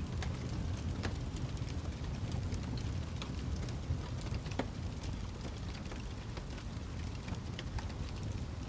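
Wood fire crackling: a steady low rumble of burning with sharp pops scattered throughout, two louder ones about a second in and about four and a half seconds in.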